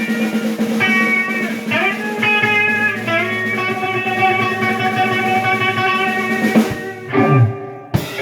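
Live rock band jamming: guitar bending and sustaining notes over drums, settling into a long held chord. The music drops out near the end, with a sharp click.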